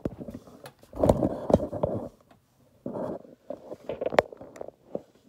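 Overlock (serger) sewing machine stitching and trimming the fabric edge in short, stop-start runs, with sharp clicks from the machine and the fabric being handled.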